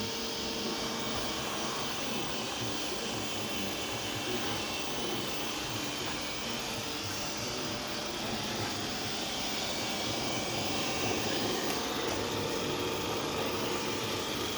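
Roborock S6 Pure robot vacuum cleaning: its suction fan and brushes run with a steady, fairly loud whirring noise that has a few steady tones in it. This is the abnormal loud running noise the owner reports from the unit while it moves.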